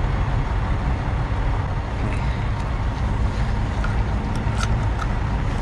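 Steady low rumble of wind on the microphone mixed with a vehicle engine running, with a few light clicks in the second half.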